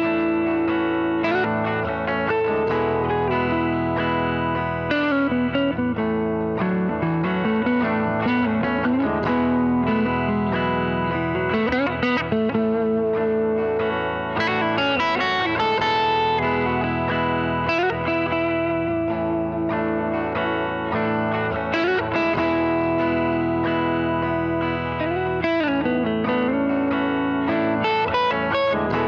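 Les Paul-style electric guitar with humbucking pickups played through a Marshall SV20C valve amp: lead phrases of ringing notes with several string bends.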